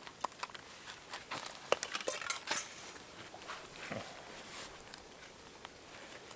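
Light clinks and taps of dishes and cutlery: a quick cluster of sharp clicks in the first couple of seconds, then a few scattered ones.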